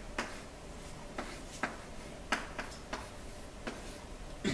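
Chalk striking a blackboard while an expression is written: a series of short, sharp, irregular taps, with the loudest knock near the end.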